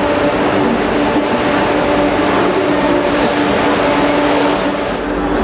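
Vande Bharat Express electric train set standing at the platform, giving off a steady hum of several held tones over an even rushing noise.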